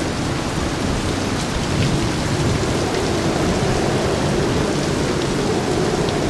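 Heavy rain falling steadily on a catamaran and the river around it, a dense even hiss with a low rumble of thunder underneath.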